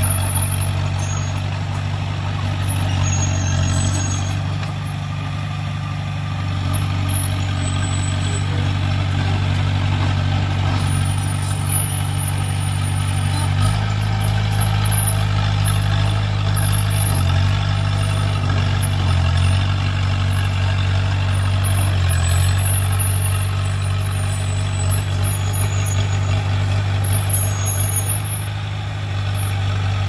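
Diesel engine of a small Komatsu crawler bulldozer running steadily as it pushes soil and rocks with its blade. The engine note shifts about halfway through.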